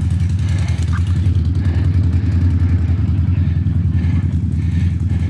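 Can-Am ATV engine running steadily at an even pace on a muddy trail, a constant low rumble.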